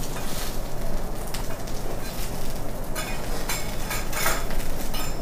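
Teppanyaki cooking at an iron griddle: a steady sizzling hiss with several sharp clinks and scrapes of metal utensils and dishes.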